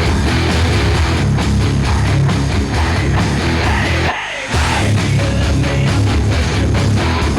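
Heavy rock music with distorted electric guitar and a driving beat; the bass drops out briefly about four seconds in.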